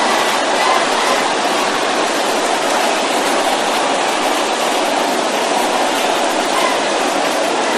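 A large congregation praying aloud all at once, many voices merging into a loud, steady wash of sound.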